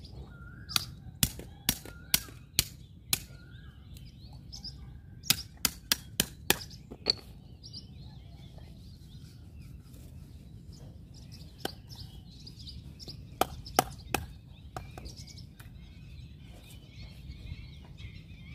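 A heavy knife chopping striped catfish on a wooden chopping board: sharp knocks in quick runs, about six in the first three seconds and six more around five to seven seconds in, then a few scattered strikes later. Birds chirp in the background.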